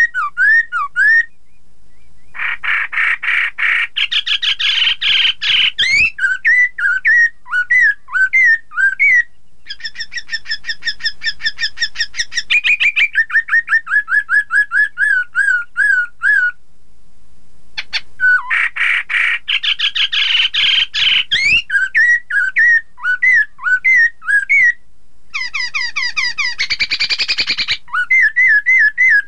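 Black-throated laughingthrush (poksay Hongkong) singing: loud phrases of rapid whistled notes, quick rising and falling slurs and chattering trills, with a few short pauses between phrases.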